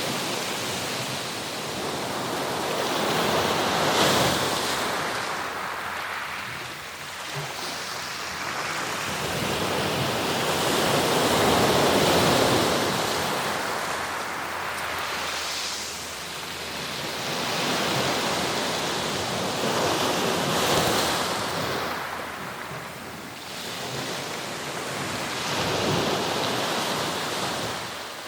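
Sea surf: waves breaking and washing up the shore, the rush swelling and falling away every several seconds.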